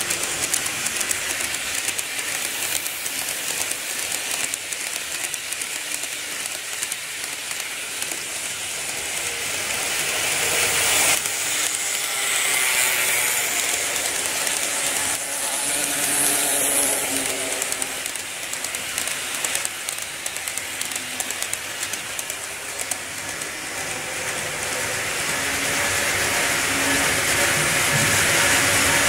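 N-gauge model electric trains running along the track, a continuous whirring hiss of motors and wheels on rail. It swells as each train passes close by.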